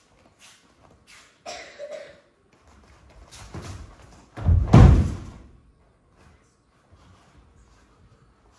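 Judo throw landing: the thrown partner hits the foam mat in a breakfall with one loud, heavy thud about four and a half seconds in, after softer shuffling steps on the mat.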